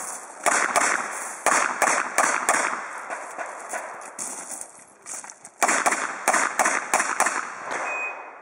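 Revolver fired in rapid shots, about six in a first string, a pause of about three seconds that fits a reload of the six-shot cylinder, then about six more, each shot trailing a short echo. A brief high beep sounds near the end.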